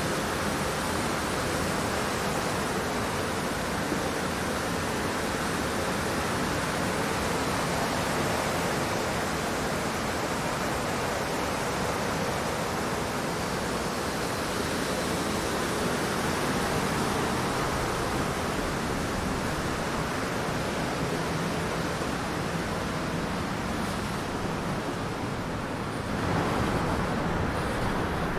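Steady hiss of light rain falling outdoors. Near the end it turns a little louder and duller.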